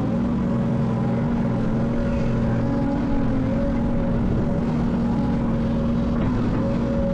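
Heavy earthmoving machine's diesel engine running steadily, a continuous drone with a held, even pitch.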